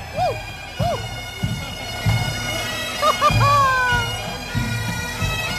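A pipe band marching and playing: bagpipes with their steady drones under the chanter melody, and drum beats at intervals.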